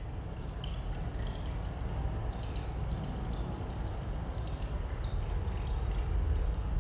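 Water drops dripping inside a cave, heard as scattered single plinks over a low rumbling ambience that grows steadily louder.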